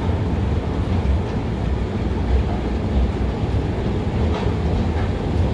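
Escalator running: a steady low rumble from its moving steps and machinery, with a few faint light clicks.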